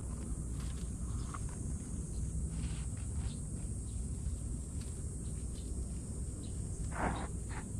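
Outdoor ambience: a steady, high-pitched insect chorus over a low background rumble, with a few faint scuffs and a brief, louder rustle about seven seconds in.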